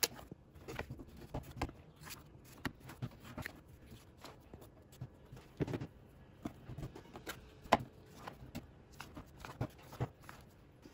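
Plastic bench scraper cutting soft dough into pieces on a wooden tabletop: faint, irregular taps and clicks as the scraper edge meets the wood, with soft handling sounds of the dough pieces.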